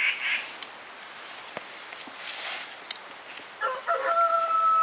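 Domestic fowl calling. A short burst of rapid clucking at the start, then about three and a half seconds in one long loud call with a choppy start and a held note that drops in pitch at the end.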